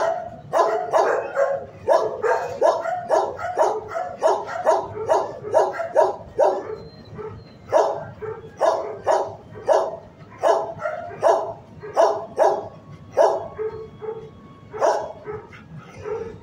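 A shelter dog barking over and over, about two to three barks a second, in runs broken by short pauses.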